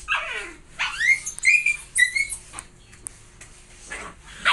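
Husky puppy whining and yelping in a run of high-pitched calls that rise and fall in pitch, then a few short, sharp yelps near the end.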